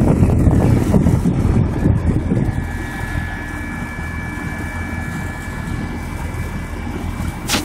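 2014 York heat pump outdoor unit running with its coil frosted up, its Genteq condenser fan blowing. Air buffets the microphone for the first couple of seconds, then settles into a steady hum with a faint whine. There is a sharp click near the end.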